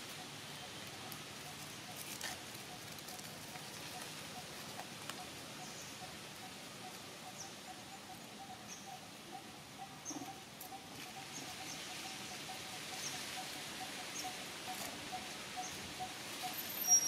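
Faint outdoor ambience: a steady low pulsing tone throughout, joined from about six seconds in by short high chirps repeating about once a second, with a sharp high chirp at the very end.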